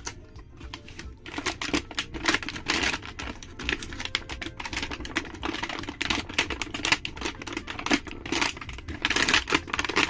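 Toy packaging and action figure being handled and unwrapped: a dense, irregular run of clicks and crackles starting about a second in.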